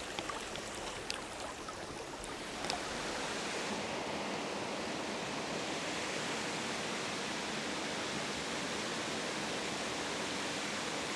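Small mountain stream rushing over rocks and little cascades: a steady hiss of running water. A few faint clicks sound in the first three seconds, and after that the water sound becomes smoother and slightly louder.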